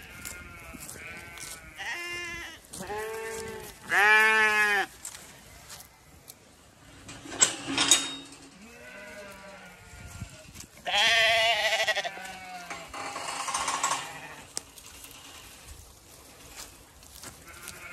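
Zwartbles lambs bleating, several separate wavering bleats from the flock, the loudest about four seconds and eleven seconds in. There is a brief knock about halfway through.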